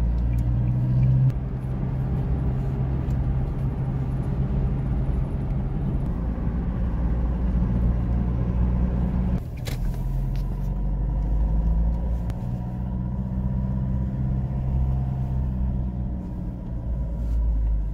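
Car engine and road noise heard from inside the cabin while driving: a steady low hum whose pitch steps up and down a few times, with a brief break about nine and a half seconds in.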